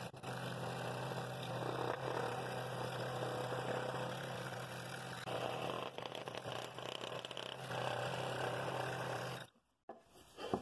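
Scroll saw running with a number 9 blade, making a slow cut through hard maple: a steady hum from the saw with the rasp of the blade in the wood. It cuts off abruptly shortly before the end.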